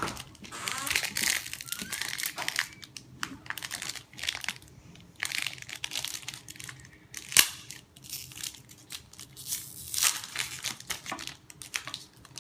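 Football trading cards being handled and flipped through, rustling and crinkling in scattered bursts with a few sharp clicks.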